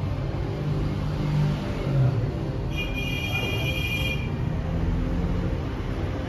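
Café room noise: a steady low rumble throughout, with a high ringing tone that sounds for about a second and a half around three seconds in.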